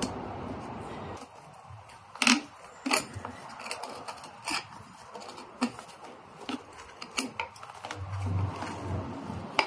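Several sharp metallic clicks and clinks from a Honda CR-Z's factory front strut assembly, clamped in spring compressors, as its spring seat and bump stop are worked off by hand.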